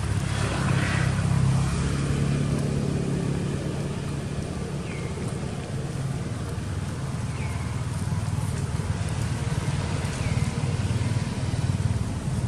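Engine of a passing road vehicle, a low steady drone that is strongest in the first few seconds. A faint short high call repeats every two to three seconds.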